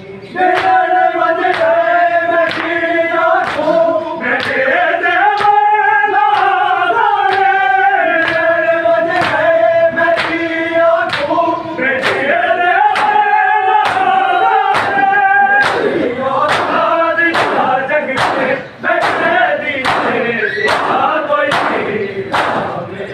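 Male voices in chorus singing a noha in long held, drawn-out notes, over rhythmic matam: bare hands slapping chests about twice a second. After about 15 seconds the singing fades and the chest-beating, with crowd shouting, takes over.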